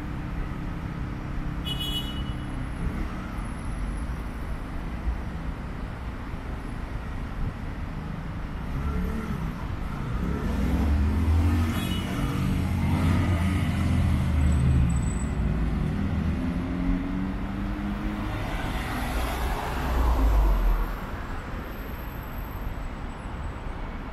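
City street traffic with idling and passing engines. A motorcycle passes about halfway through with its engine note rising and falling, and a louder low rumble from another passing vehicle comes near the end.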